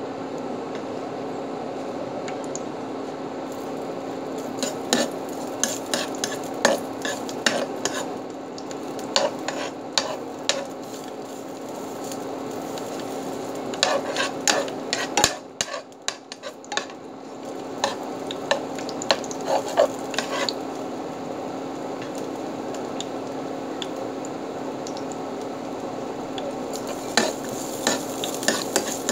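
Chopped garlic sizzling in hot oil in a large dark pan, with a spatula stirring and scraping against the pan in several spells of sharp clicks and taps. A steady hum runs underneath.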